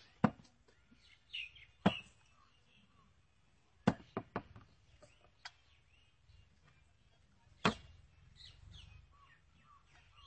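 Small glass liquor bottles being set down on a table one at a time, each landing with a sharp knock or clink, about half a dozen spaced irregularly through the stretch.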